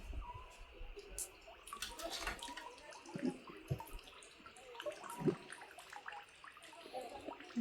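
Faint splashing and dripping water, with scattered small clicks and soft knocks.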